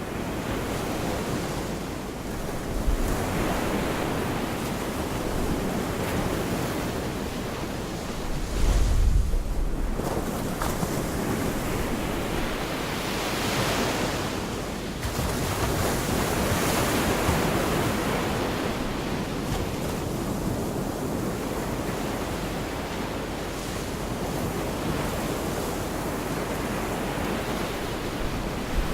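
Gulf of Mexico surf washing onto a beach, swelling and easing as each wave comes in, with wind buffeting the microphone, most strongly about nine seconds in.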